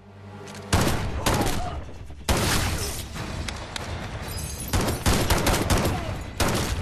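Rapid gunfire in a film shootout, starting abruptly under a second in and coming in dense bursts of shots with brief lulls between them.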